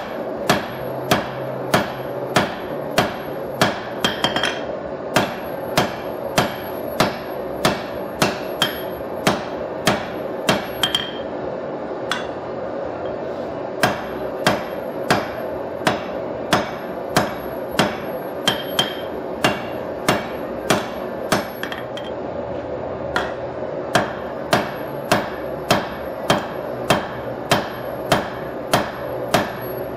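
Hand hammer striking red-hot steel on an anvil while drawing out a blade, about two ringing blows a second in runs, with short pauses about four, twelve and twenty-two seconds in. A steady rush of the propane forge runs underneath.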